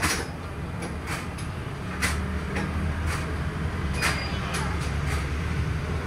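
Moving city bus heard from inside the cabin: a steady low rumble of engine and road noise, with sharp rattles and knocks from the bus body about once a second.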